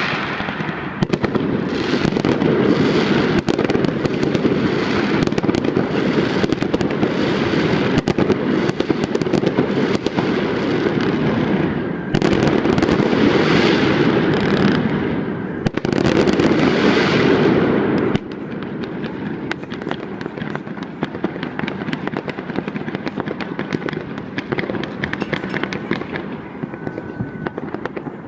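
Fireworks going off: a dense, continuous crackle of rapid pops and bangs. It thins to lighter crackling about two-thirds of the way through.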